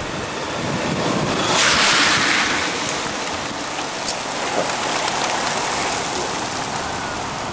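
Steady rain falling, with a louder rushing swell about one and a half to three seconds in.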